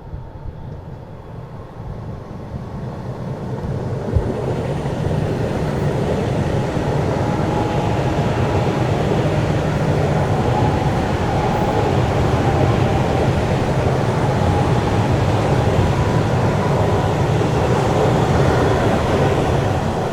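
Ivolga (EG2Tv) electric train running past on the rails, getting louder over the first few seconds, then staying loud and steady. A single sharp knock comes about four seconds in.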